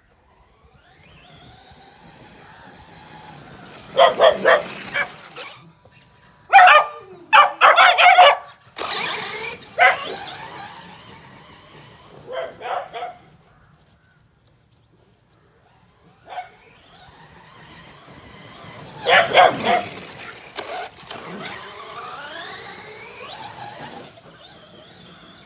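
Bedlington Terriers barking in several bursts while a brushless RC car's electric motor whines, rising and falling in pitch as it speeds up and slows across the lawn.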